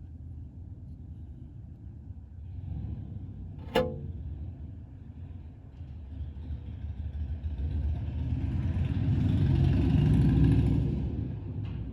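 A low rumble that builds to a peak and fades, with a single sharp knock about four seconds in.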